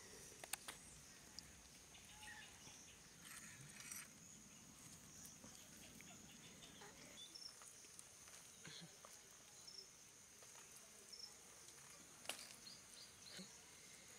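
Near silence: faint, steady insect chirring in the background, with a few faint clicks scattered through.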